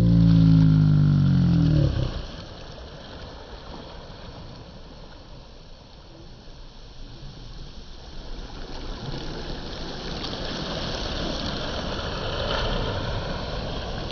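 Low, slowed-down wash of sea water as played back in slow motion, growing louder toward the end. For about the first two seconds a deep, drawn-out pitched sound runs over it and then falls away.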